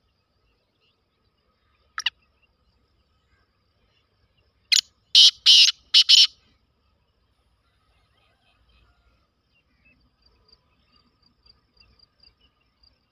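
Black francolin calling: a short note about two seconds in, then its loud call of four quick notes in under two seconds. Faint high chirps of small birds follow near the end.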